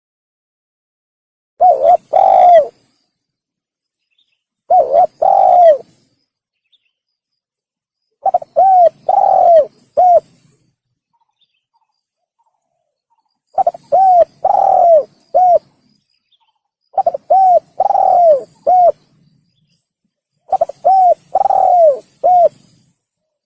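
Spotted dove (tekukur) cooing: six phrases, each of a few short coos that rise and fall in pitch, coming every three to four seconds with silence between.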